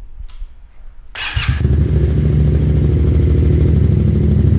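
Yamaha MT-07's parallel-twin engine through a Mivv Delta Race slip-on exhaust with the dB killer removed: the starter cranks briefly about a second in, the engine catches and settles into a loud, steady, pulsing idle.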